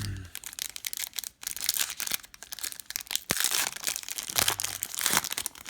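Crinkling and tearing of a trading-card pack wrapper being handled and opened, with many quick crackles in louder spells.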